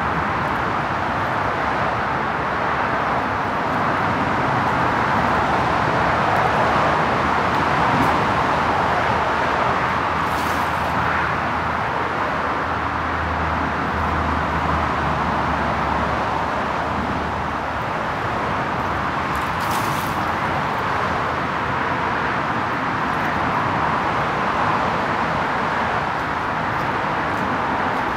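Steady rushing outdoor background noise with no clear single event, and a low hum for a few seconds in the middle.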